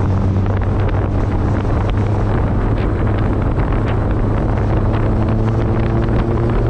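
Wind buffeting a camera held out of a moving car's window, over the steady hum of the car's engine and road noise; the engine note rises slightly about five seconds in.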